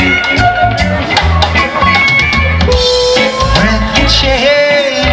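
Live rock band playing an instrumental passage: a drum kit keeps a steady beat under a bass line, with electric guitars and keyboard. From about halfway, a held lead note bends in pitch.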